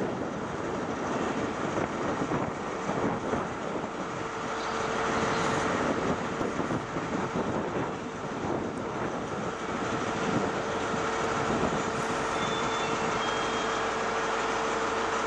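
CrossCountry Voyager diesel multiple unit passing, its underfloor diesel engines running with a steady whine that sets in about four seconds in.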